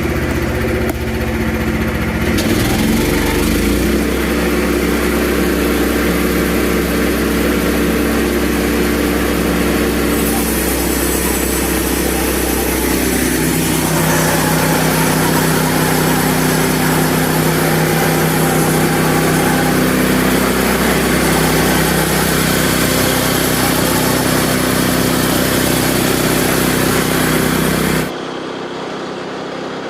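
Engine of a Frontier OS27 portable band sawmill running steadily under load as the band blade cuts through a large red oak log. The engine note shifts about halfway through, and the sound drops abruptly near the end.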